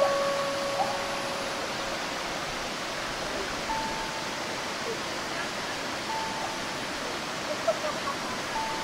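Steady rush of a small waterfall pouring over rock into a stream. Short, clear single-pitch notes sound faintly over it every couple of seconds.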